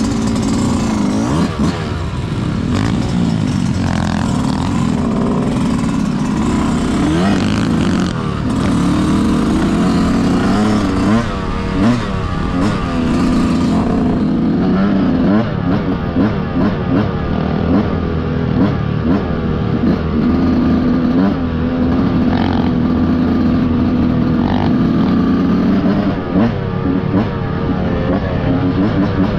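Dirt bike engine being ridden hard, its pitch rising and dropping again and again as it revs up and shifts gears.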